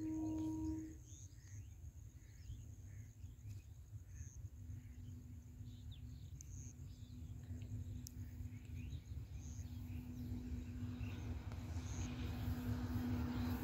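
A freight train's electric locomotive approaching from a distance: a low rumble and a steady hum that grow louder toward the end, with birds chirping over it. A short low tone sounds at the very start.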